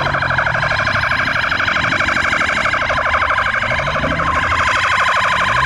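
Police car siren in a very fast warble, many pitch swings a second, over the low drone of a vehicle engine; a few seconds in, a steady tone sounds alongside the warble.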